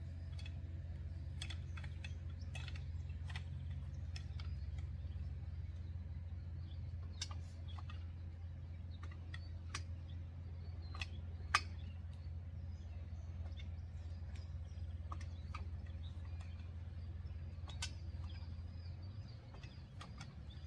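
Scattered clicks and knocks from fibreglass mat rods (jump rods) being handled and fitted into a Springfree trampoline, with one sharper click about eleven seconds in. A steady low rumble runs underneath, and birds chirp faintly near the end.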